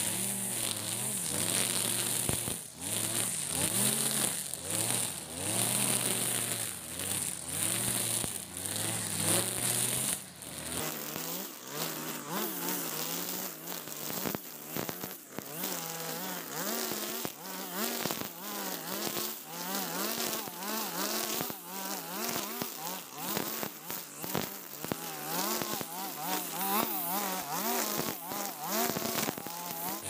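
Husqvarna 542RBS backpack brush cutter's 42cc two-stroke engine running with its nylon trimmer line cutting short grass. The engine's pitch keeps rising and falling as it works.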